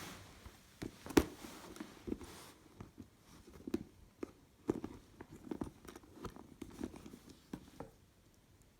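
Handbag being handled: irregular soft rustles and light taps and clicks, with one sharper click about a second in, dying away near the end.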